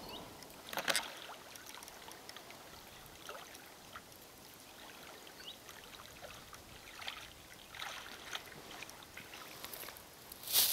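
Faint, scattered light splashes and trickles of shallow water stirred by snorkelers swimming in a narrow channel, with a few soft rustles.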